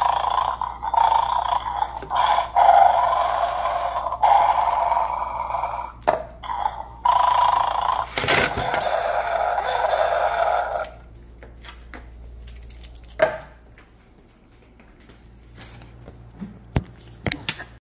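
Battery-powered 'Beware of the Dog' toy bulldog playing a recorded growling sound through its small speaker, in surges about every two seconds, with a sharp loud burst about eight seconds in. The sound stops after about eleven seconds, leaving only a few small clicks and handling knocks.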